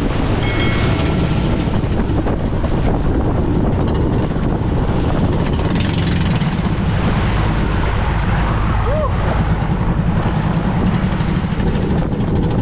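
A boat running at sea: a steady low engine rumble mixed with rushing water and wind buffeting the microphone.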